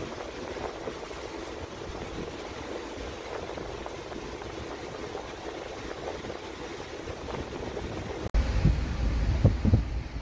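Steady outdoor background noise with no clear single source. A little past eight seconds it breaks off abruptly into a louder, low, gusty rumble.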